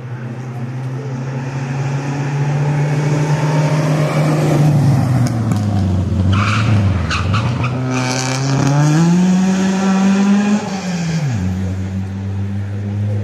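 Rally car passing at speed. Its engine note falls as it slows for a corner, with a few sharp bursts of noise around the slowdown. It then rises steeply under acceleration and drops suddenly on a gear change, leaving a steady lower engine note.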